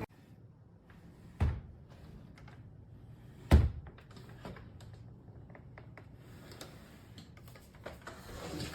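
Knocks and clicks as the Shark Navigator upright vacuum is handled: two sharp thumps, about a second and a half and three and a half seconds in, the second louder, with lighter clicks between; the motor is not running.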